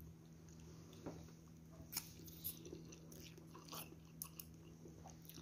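Quiet chewing and mouth sounds of a person eating noodle soup, with a few short soft clicks scattered through, over a faint steady hum.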